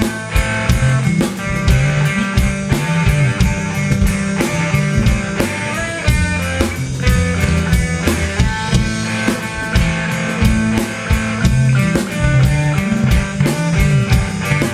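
Rock music: a drum kit keeping a steady beat, with guitar and a moving bass line.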